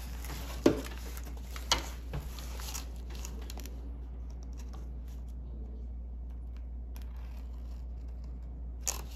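A few sharp knocks as a wooden yardstick is moved and set down on paper on a wooden table, the loudest about a second in. Then come faint scratches of a pen drawing a line along the ruler, over a steady low hum.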